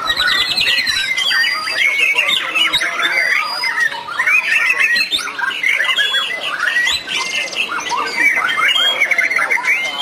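Several white-rumped shamas (murai batu) singing at once: dense, overlapping whistles, chirps and rapid trills with no pause.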